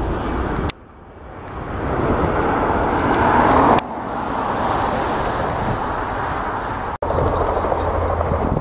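Steady roar of the Boeing RC-135 Rivet Joint's four jet engines as it flies past and away, broken by three abrupt cuts; in one stretch the roar swells steadily louder before cutting off.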